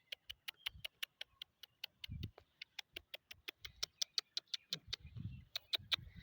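Rapid, very regular ticking, about six or seven sharp clicks a second, that stops just before the end, with a few low thuds underneath.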